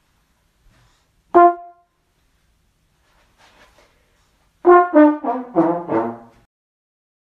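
Trombone blown: one short, loud blast, then after a pause a quick run of about six short notes, each a step lower than the last.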